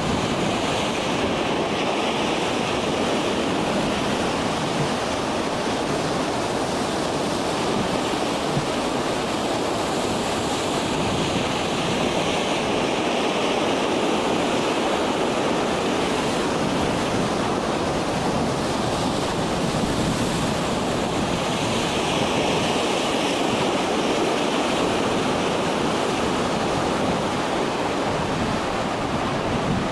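Heavy breaking surf and wind: a steady rushing noise that slowly swells and eases.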